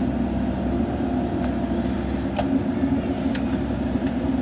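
Diesel engine of a JCB 3DX backhoe loader running steadily, with a few faint clicks about one, two and three seconds in.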